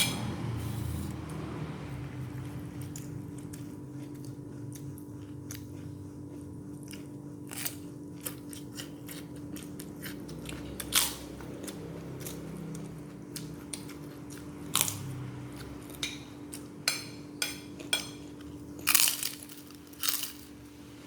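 A person eating with crunching and chewing, and short sharp clicks that come more often in the second half, over a steady low hum.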